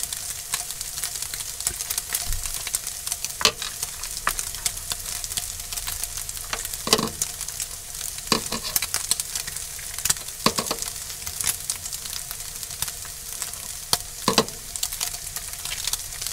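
Pieces of chicken kebab meat sizzling in a frying pan, a steady hiss, with a few sharp clicks now and then.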